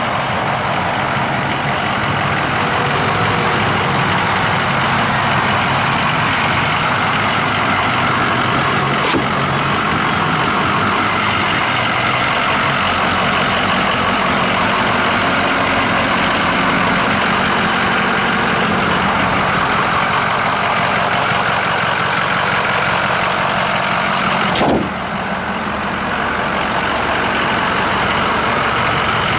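Ford 6.0L Power Stroke turbo-diesel V8 idling steadily, with a sharp click about three-quarters of the way through.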